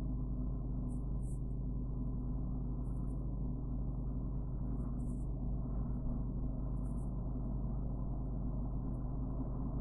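Steady low hum, with faint soft scratches every second or so as a metal crochet hook draws cotton thread through the stitches.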